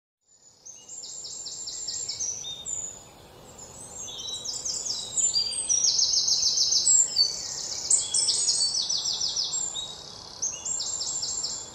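Several songbirds singing, with quick trilled phrases of rapidly repeated high notes coming every second or two, over a faint steady background hiss.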